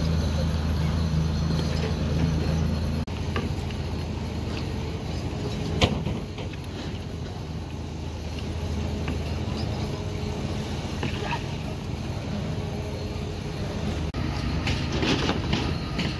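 A steady low engine hum from site machinery that drops lower about three seconds in, with a single sharp knock about six seconds in and a few light clinks near the end.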